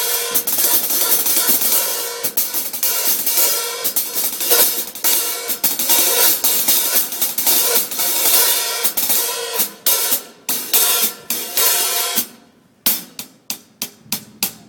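Drum kit being played: busy grooves with a constant hi-hat and cymbal wash over snare and drum strokes, thinning out after about ten seconds. After a short pause near the end come single strokes at an even pace, about four a second.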